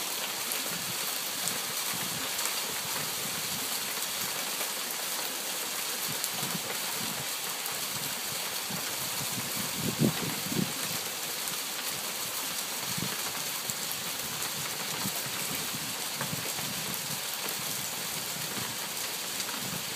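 Small hail falling steadily: a continuous hiss with many scattered light taps of hailstones hitting surfaces, and a couple of louder knocks about halfway through.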